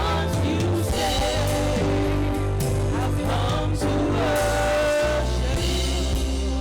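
Gospel worship music: a singer holding long, bending notes over a band with a steady bass and drums.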